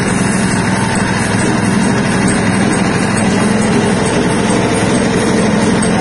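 Stainless-steel soybean cracking and dehulling machine running steadily, its motor humming without a break.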